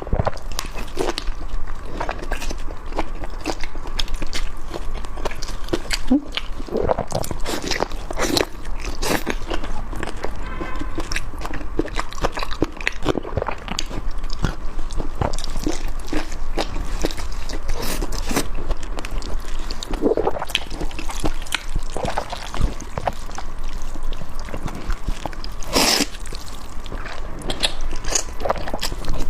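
Close-up eating sounds: chewing and slurping Nanchang mixed rice noodles, with frequent wet smacks and small clicks from the mouth.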